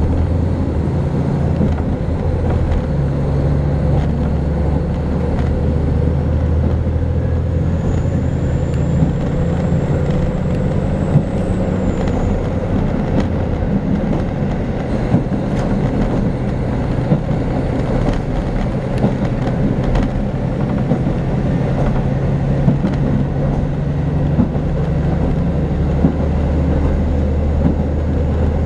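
Diesel railcar running steadily at speed, heard from inside the passenger cabin: a low engine drone under wheel-on-rail rumble, with occasional sharp clicks from the track.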